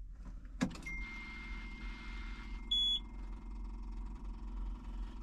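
John Deere 2038R compact tractor's dash warning alarm for an intake manifold pressure sensor fault: a click, then a thin steady electronic tone lasting a second and a half, followed by a short, louder beep about three seconds in, over the low hum of the tractor.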